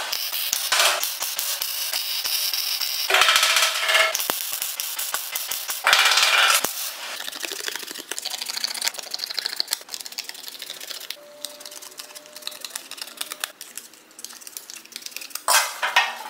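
MIG welder tacking sheet-steel floor panels, three short crackling spells in the first seven seconds with clicks between them. Then quieter snipping and rustling of scissors cutting a cardboard template, and a brief loud burst again near the end.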